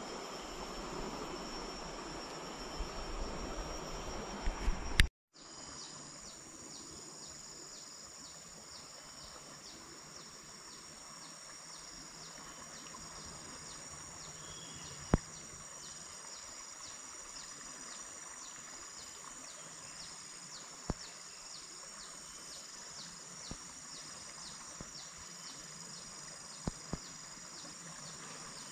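For about the first five seconds there is close rustling with a few sharp clicks from hands baiting a fishing hook. It cuts off, and steady riverbank ambience follows: insects chirping in an even, fast repeating pulse over a faint steady hiss, with an occasional single click.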